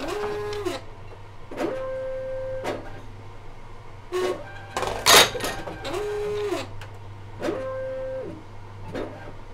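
Reverse vending machine's bottle-handling motors whirring in four short runs of about a second, each gliding up in pitch as it starts and down as it stops, over a steady electrical hum. Sharp knocks and clatter of returned bottles being moved through the mechanism, the loudest about five seconds in.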